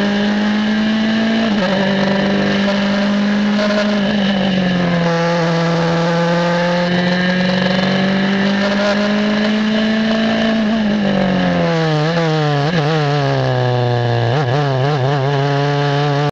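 Onboard sound of an Elan DP-02 prototype race car's four-cylinder engine at high revs, holding a steady note. About eleven seconds in the pitch falls as the car slows for a corner, and the note wavers twice near the end.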